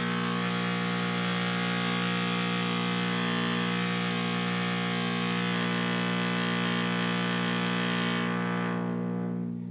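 Analog synth oscillator's sawtooth tone running steadily through a breadboarded Yusynth Steiner voltage-controlled filter, slightly clipped by the amplifier so it sounds somewhat more aggressive. About eight seconds in, the filter cutoff is swept down and the tone turns dull.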